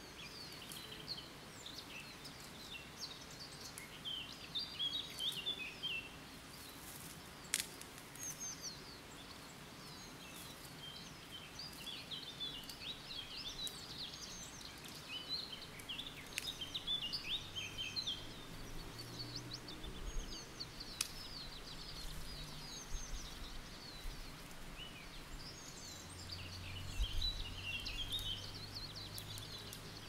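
Songbirds singing: overlapping short trills and chirps from several birds throughout. A faint low drone comes in a little past halfway.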